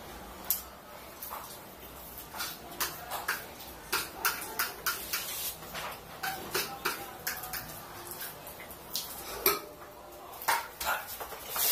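A fork tapping and scraping against the inside of a plastic bowl while scooping up instant noodles, in many quick, irregular clicks.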